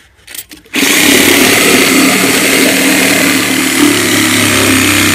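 DeWalt reciprocating saw starting up about a second in and running steadily as its blade cuts into old timber of a barn sill.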